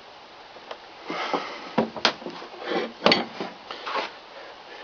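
Handling noise: a quiet first second, then irregular knocks, clinks and scraping rubs as the tools on the keel bolt are taken up and worked with two hands.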